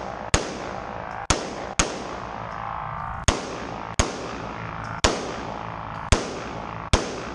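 Handgun shots fired in a timed pistol course of fire: eight shots in uneven pairs and singles, each echoing briefly off the walls of an indoor range.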